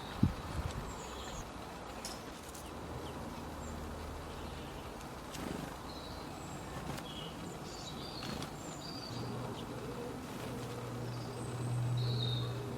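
Outdoor ambience of small birds giving scattered short, high chirps over a steady background hiss, with a low drone that swells near the end.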